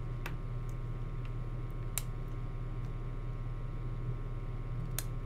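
Steady low hum of room tone with a few faint, sharp clicks, the clearest about two seconds in and near the end.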